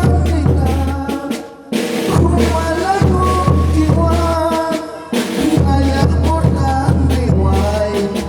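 Bolivian carnival brass band playing: a brass melody over a heavy low bass line, with drum and cymbal hits and brief breaks in the phrasing about a second and a half and five seconds in.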